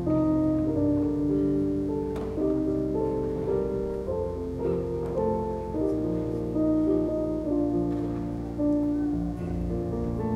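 Slow instrumental keyboard music, held chords changing every second or so.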